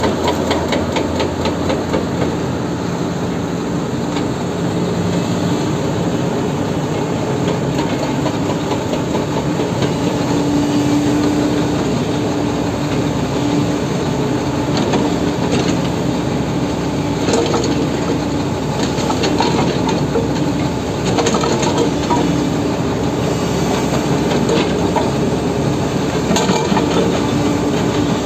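Excavator-mounted hydraulic breaker hammering on rock in rapid blows, over the steady drone of the excavator's diesel engine working under load.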